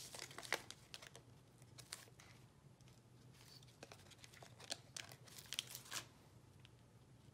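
Faint crinkling and rustling of a sheet of 3D foam adhesive squares being handled and peeled off its backing, with scattered small clicks.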